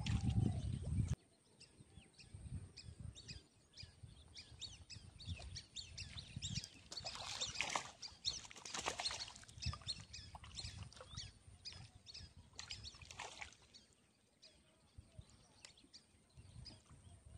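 Small birds chirping and calling, many short high chirps, busiest in the middle stretch. For about the first second a louder low rumble of handling noise on the microphone covers them, then it cuts off suddenly.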